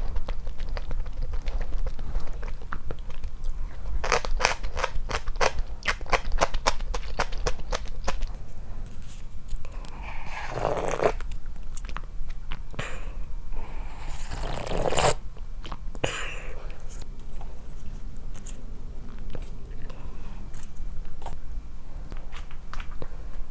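Close-miked eating sounds: bursts of rapid, crisp crunching and chewing, with two louder, longer rushing noises about ten and fifteen seconds in.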